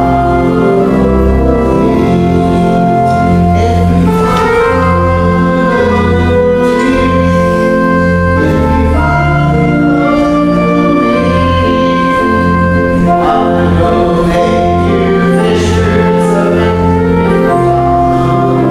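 Church music played on a keyboard instrument: held chords over a bass line that steps to a new note about once a second.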